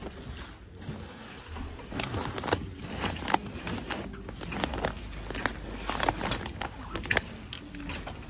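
Irregular rustling and light clicks and clinks from goods being handled on wire store shelves, over a steady low background hum.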